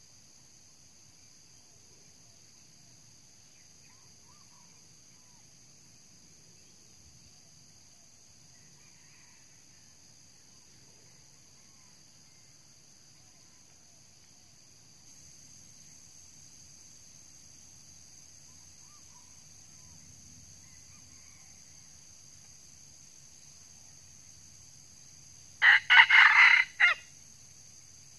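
A red junglefowl rooster crows once near the end, a short, loud crow broken into a few quick pulses. Under it a steady high insect buzz runs throughout, a little louder from about halfway through.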